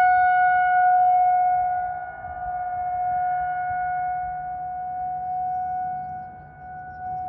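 Outdoor civil-defense warning siren sounding a steady single-pitch tone for its monthly test. The tone fades and swells twice, about two seconds in and again near the end.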